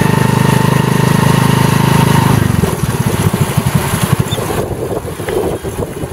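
Single-cylinder four-stroke engine of a Honda Win 100 pulling a becak motor sidecar taxi, running steadily under way. About two seconds in the engine note drops, and it carries on in slower, uneven pulses as the bike eases off and slows.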